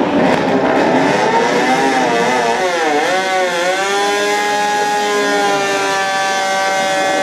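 Honda RC213V MotoGP bike's 1000cc V-4 engine revving. The pitch dips and rises a few times, then holds at steady high revs for a burnout, the rear tyre spinning and smoking.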